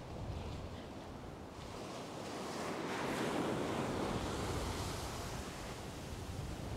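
Ocean surf breaking and washing up the sand, swelling to its loudest about three seconds in and then easing off, with wind rumbling on the microphone at first.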